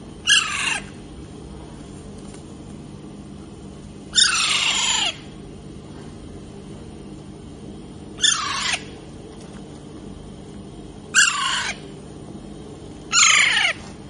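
Young green parrot giving five loud, harsh screeches a few seconds apart, each falling steeply in pitch.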